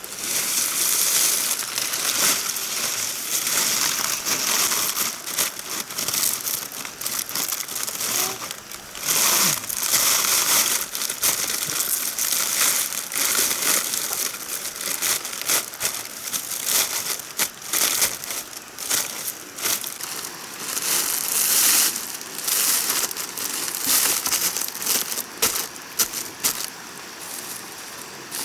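Continuous dry rustling and crinkling with many small crackles and clicks, rising and falling in loudness, like dry plant material being handled or crushed.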